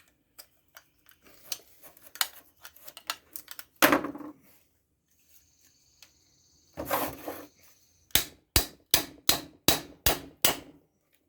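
Plastic housing of an old hair dryer being struck and broken apart: scattered knocks and cracks, one loud blow about four seconds in, then a quick run of about ten sharp blows, roughly four a second, near the end.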